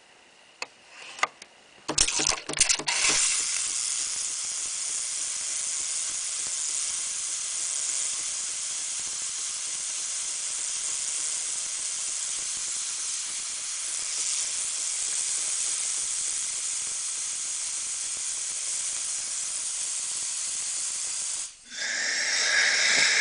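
Nespresso C190 steam wand venting steam: a few clicks, then it spits and sputters for about a second before settling into a steady high hiss. The hiss cuts off suddenly near the end and then resumes.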